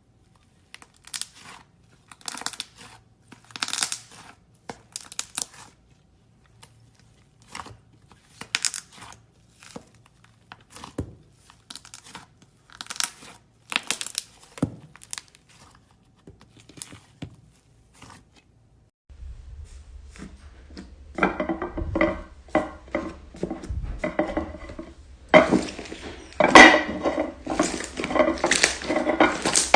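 Slime being squished and stretched by hand, giving sticky crackles and pops in irregular bursts. About nineteen seconds in, a louder, denser run of crackling takes over.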